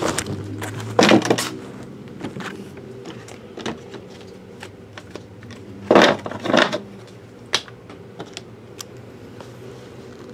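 Cardboard trading-card boxes and packs being handled on a table: a few short knocks and rustling clatters, the loudest about a second in and twice around six seconds in, over a steady low hum.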